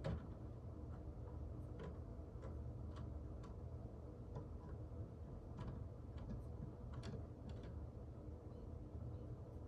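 Irregular light ticks and taps, one or two a second, over a low steady hum.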